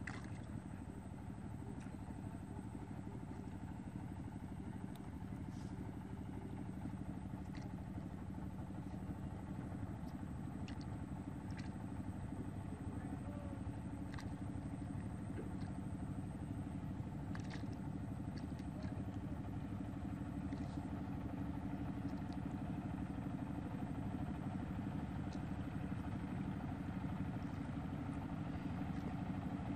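Steady drone of an engine running at a constant speed, with a few faint clicks scattered through it.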